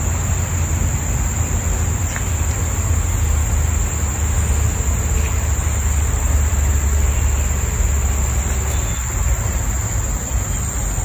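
Steady high-pitched drone of forest insects over a constant low rumble.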